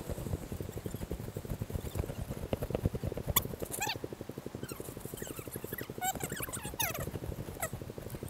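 Dry maze stalks rustling and brushing against a handheld camera while walking through them, with dense scuffing and handling noise. A few short, high, falling calls from an unseen animal or person come in the middle.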